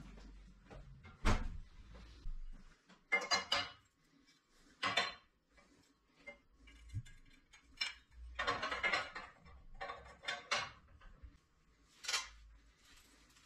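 Metal clanks and rattles as aluminium fence rails are handled and set against a bandsaw's metal table. There is a sharp knock about a second in, then several short bursts of clattering.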